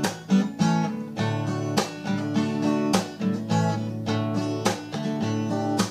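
Instrumental passage of a song: acoustic guitar strummed in a steady rhythm, with no vocals.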